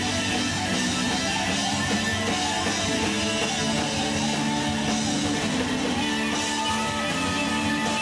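Live band music with guitars leading over bass and drums, playing steadily with no singing.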